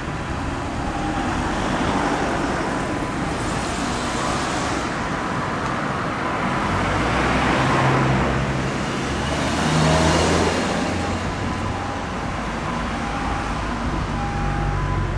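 Steady road traffic at a city intersection, with two vehicles passing close by about eight and ten seconds in.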